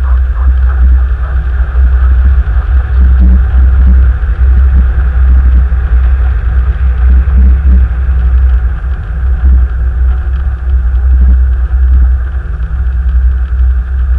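A car driving, with a steady low rumble of engine and road noise picked up by a dash cam inside the cabin, and a few irregular low thuds along the way.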